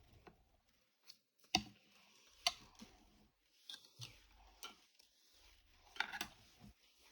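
A few faint, sharp clicks and taps, the loudest about a second and a half in, again at two and a half seconds, and a pair near six seconds.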